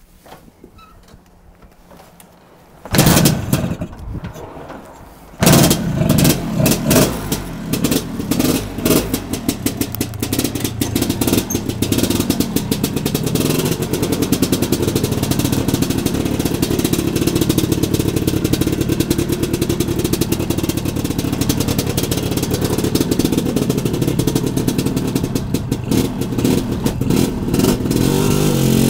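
Lambretta scooter with a Monza 200 two-stroke single-cylinder kit and a JL3 snail exhaust, started up. It fires briefly about three seconds in and dies, catches about two seconds later, is blipped a few times, then runs steadily and rises in pitch near the end.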